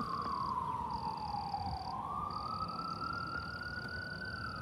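Siren wailing, its single tone sliding slowly down in pitch for about two seconds, then climbing back up and holding. A thin, high, steady tone sounds over it and breaks off twice near the start.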